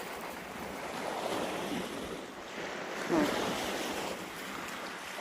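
Ocean surf washing on the beach, with wind buffeting the microphone. A brief faint call or cry rises over it about three seconds in.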